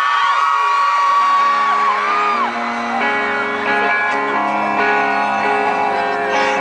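Live rock band playing an instrumental passage of a ballad, with sustained guitar chords. Fans whoop and scream over it in the first couple of seconds, then the chords ring on.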